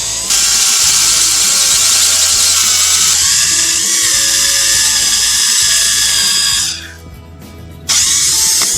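Foster FSD-010 corded 350 W drill running at speed as it bores through a mild-steel plate, a loud high-pitched motor whine. It runs for about six seconds, stops, then starts again briefly near the end.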